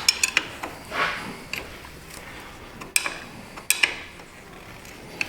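Scattered metallic clicks and knocks of hand tools, a wrench and socket working on a bolt in the engine bay: a quick cluster at the start, then single sharp clicks every second or so.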